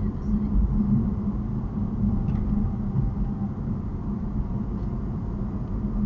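Steady low rumble of road and engine noise inside a car's cabin, driving at an even speed of about 50 km/h.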